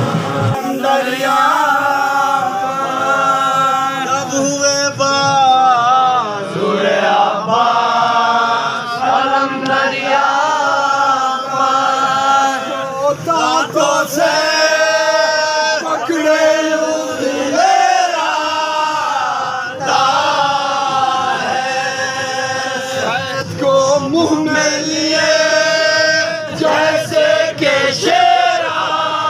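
A group of men chanting a noha, the Shia lament for Muharram, together in a sung recitation.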